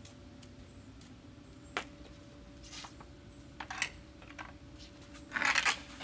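Carbon fiber hockey stick blade tapping a rubber puck on concrete: a few sharp clicks, then a louder scraping strike near the end.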